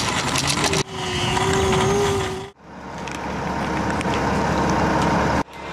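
Steady vehicle noise with a low rumble and hiss, in short clips that cut off abruptly about one second and two and a half seconds in; a wavering tone runs through the middle clip.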